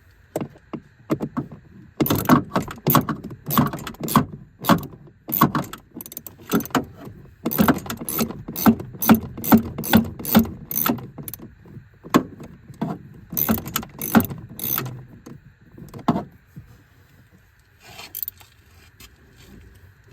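Ratchet wrench with a small 7/32-inch socket on an extension clicking in quick back-and-forth strokes as a blower-motor mounting bolt is backed out, in runs of rapid clicks with short pauses, thinning out after about sixteen seconds.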